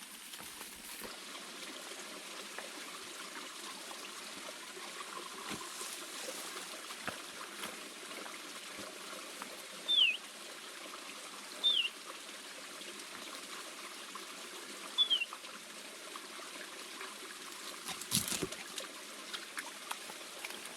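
Water trickling steadily. A bird gives three short falling whistles in the middle, and there is a brief knock near the end.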